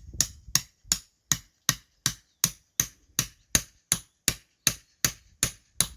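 A hammer striking a portable chainsaw-sharpening stump vise, driving it into a tree stump: a steady run of sharp, ringing blows, nearly three a second, about sixteen in all.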